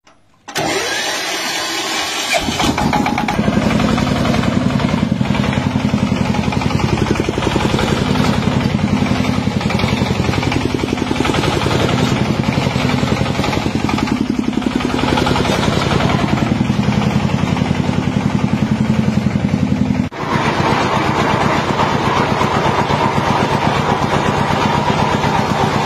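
Single-cylinder Changchai diesel engine on a power tiller starting up half a second in, then running with a steady, even firing beat. About 20 seconds in the sound changes abruptly to a harsher, noisier engine sound.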